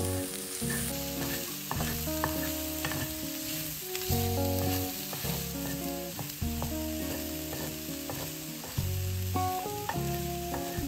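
Food sizzling as it fries in a pan, under background music of plucked chords that change every second or so.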